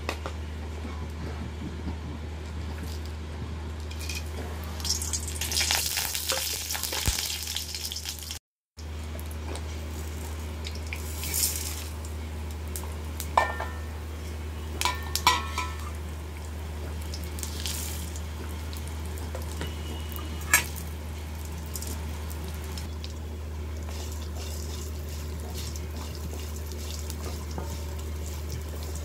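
Whole spices (cumin, chana dal, peppercorns, dried red chilli, coriander seeds) frying in a little oil in a steel kadai, a steady light sizzle over a low hum. The sound cuts out briefly about a third of the way in, and a few sharp clinks come around the middle.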